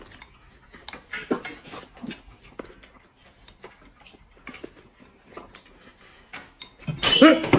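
Soft close-up eating sounds: chewing and scattered light clicks of chopsticks against a bowl, then a sudden much louder sound near the end.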